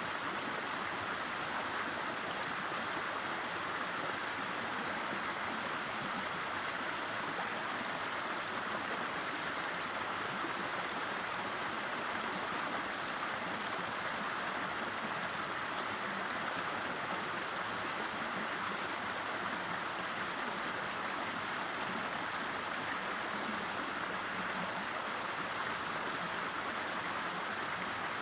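A river's water flowing steadily, an even, unbroken rushing with no changes.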